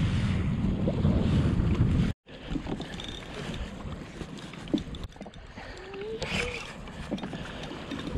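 Wind buffeting the microphone on a kayak at sea, loud and rumbling at first, cutting off abruptly about two seconds in; after that, quieter wind and lapping water.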